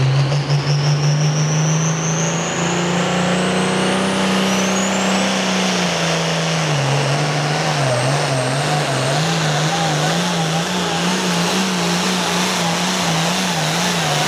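International pulling tractor's turbocharged diesel engine at full power, pulling a weight sled in a Super Pro Farm class pull. A high turbo whine climbs steeply as the engine's pitch rises in the first few seconds. From about halfway on, the engine note wavers rapidly up and down as the tractor works against the sled.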